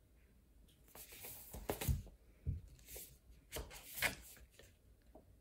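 A hardcover picture book being handled and turned over: a few short knocks and rustles, the loudest about two seconds and four seconds in.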